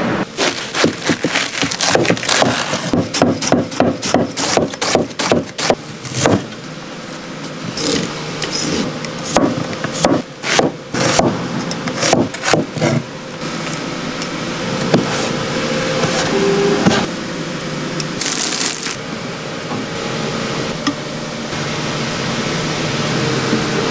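Kitchen knife chopping onion on a wooden cutting board: a fast run of sharp strikes, several a second, for about the first half. This gives way to softer scraping and rubbing of the knife against the board and the food.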